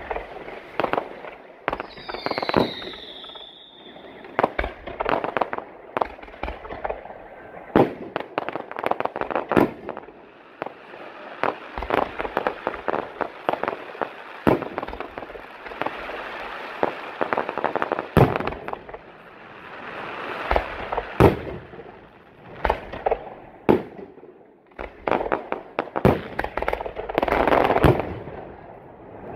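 Fireworks display: multi-shot firework batteries and aerial bursts going off in quick, irregular bangs and pops. A falling whistle comes about two seconds in, and the barrage thickens into a denser, louder stretch near the end.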